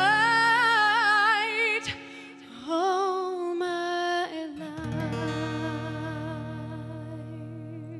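A woman singing the closing held notes of a slow song, three long notes with vibrato, over guitar accompaniment; the last note fades out near the end.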